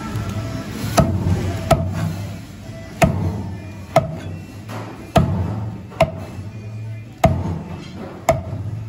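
Mallet striking the spine of a cleaver to drive it through a black snapper into a cutting board, chopping the fish into steaks: eight sharp strikes about a second apart, each with a short ringing note. Background music plays underneath.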